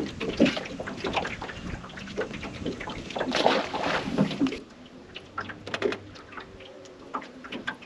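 Water splashing and sloshing as a saratoga is let go over the side of an aluminium boat, mixed with handling knocks and clicks. The splashing is densest up to about four and a half seconds in, after which only scattered clicks remain.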